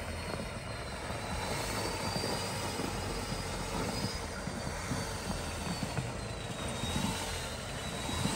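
Nissan Patrol off-road engine running steadily, with a faint high whine that drifts slowly up and down in pitch.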